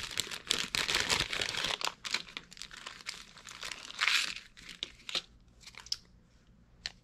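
Clear plastic packaging bags crinkling and rustling as they are opened and handled. The crinkling is heaviest in the first two seconds, swells again about four seconds in, then dies down to small rustles.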